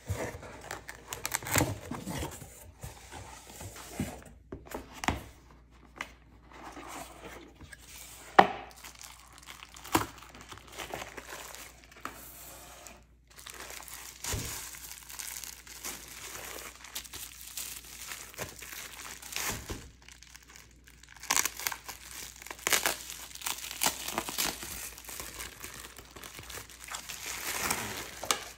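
Packaging being handled and unwrapped: a cardboard mailer box opened with scattered sharp knocks and taps, then plastic bubble wrap crinkling and rustling steadily over the last several seconds as a spiral-bound planner is pulled out of it.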